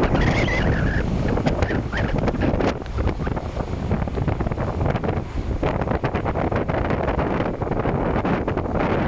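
Wind buffeting the microphone on the deck of a moving boat, over a steady low rumble of the boat's engine and the rush of water.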